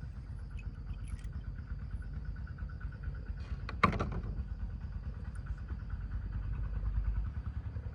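An engine idling steadily, a low pulsing rumble, with one sharp click a little under four seconds in.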